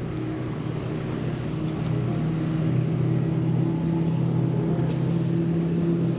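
Triple Mercury Verado outboards running at high speed: a steady engine drone under rushing water and wind, getting louder about two seconds in.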